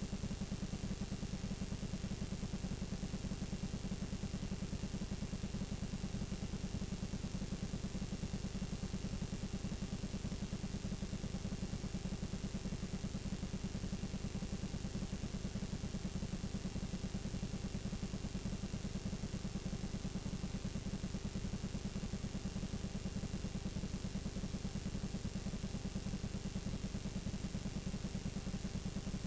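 Steady static from a blank stretch of videotape playing back: a low buzzing hum under an even hiss, with a thin high-pitched whine above.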